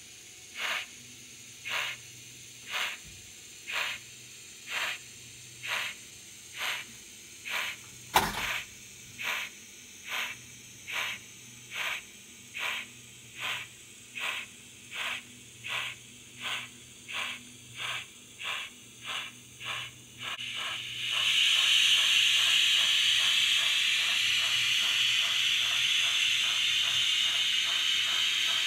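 Steam locomotive exhaust chuffs from an H0 model of RENFE steam tank engine 141-0217. They come about one a second at first and quicken steadily to about two a second as the train gets under way, with a single sharp clank about eight seconds in. About 21 seconds in, a loud steady hiss of steam starts and runs on over fainter chuffs.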